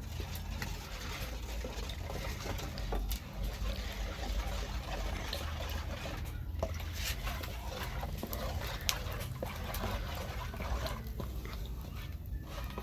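Millet flour being stirred into milk in a container: a wet, irregular mixing sound with small clicks and knocks.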